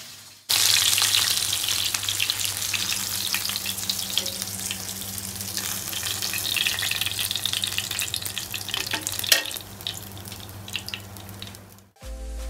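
Pomfret fish frying in shallow oil in a pan: a dense, steady sizzle and crackle that starts abruptly about half a second in and stops suddenly near the end, with a steady low hum beneath it.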